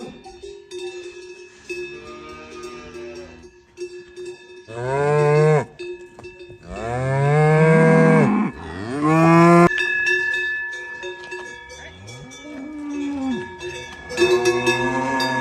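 Cattle mooing, with three loud, long moos in the middle and fainter calls before and after, over the steady ringing of cowbells.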